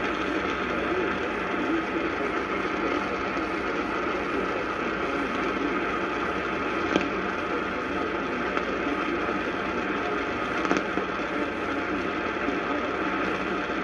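Steady hiss-like noise with no clear pitch, broken by two faint clicks about seven and eleven seconds in.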